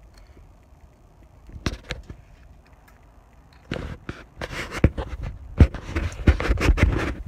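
Handling noise of a RAM handlebar mount being worked onto a motorcycle handlebar by hand: a single knock about one and a half seconds in, then a dense run of knocks, clicks and scraping in the second half.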